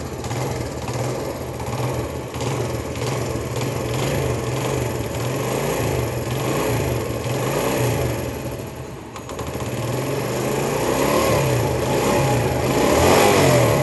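A 70cc four-stroke single-cylinder motorcycle engine idling just after starting, running with its tappet cover off while oil flow to the cylinder head is checked. The engine note dips briefly a little past the middle, then runs somewhat louder toward the end.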